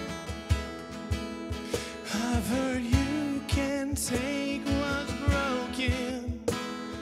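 Worship song played on strummed acoustic guitar with a steady beat; a singer comes in about two seconds in.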